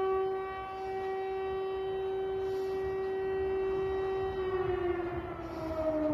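Civil-defence air-raid siren sounding an alert. It holds one steady pitch, then starts sliding lower about four and a half seconds in.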